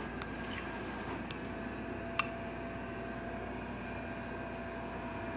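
A metal spoon clicking lightly against a ceramic bowl a few times, the sharpest click about two seconds in, over a steady low room hum.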